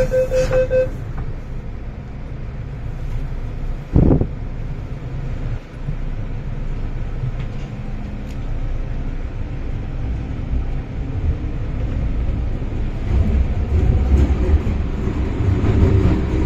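MTR Island Line M-Train electric multiple unit heard from on board: the door-closing beeps end in the first second, a single thump comes about four seconds in, then the train's steady low rumble, growing louder and heavier over the last few seconds.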